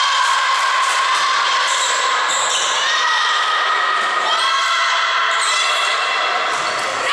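Many high-pitched girls' voices shouting and cheering without pause in an echoing sports hall, with a few volleyball hits from the serve and rally.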